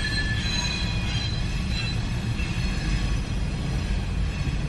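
Freight train rolling past: a steady low rumble, with high-pitched wheel squeal that fades out about two seconds in.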